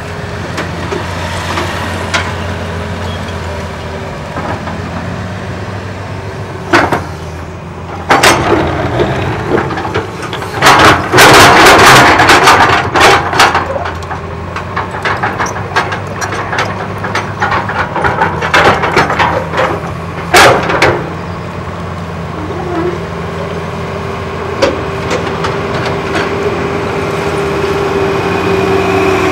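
Tata Hitachi 200 excavator's diesel engine running steadily while its bucket digs into a mound of rubble and debris. The bucket makes crunching and clattering impacts, loudest in a burst about 11 to 13 seconds in and again around 20 seconds. Near the end a rising whine comes in as the engine works harder.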